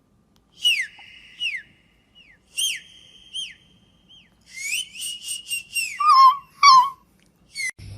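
A series of whistles: four short falling whistles in the first few seconds, then a longer held high whistle broken by quick chirps, then lower warbling notes near the end.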